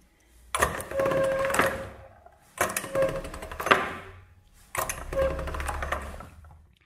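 Hand-cranked pasta machine turning as black polymer clay is rolled through its rollers: three runs of clicking gears with a light squeak, each about a second and a half long. The clay is being conditioned by repeated passes through the machine.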